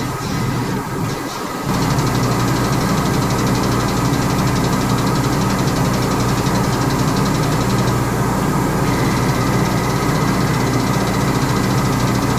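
Powered hydraulic pump driving a tube bender's ram as it bends a steel tube for a race-car front end. It runs as a steady mechanical hum, stepping up louder about two seconds in and holding even.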